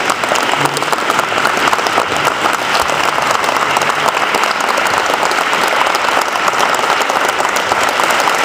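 Audience applauding: dense, steady clapping from many hands, unbroken throughout.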